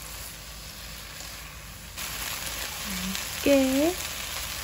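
Julienned potatoes sizzling as they are stir-fried in an oiled pan, the sizzle growing louder about halfway through.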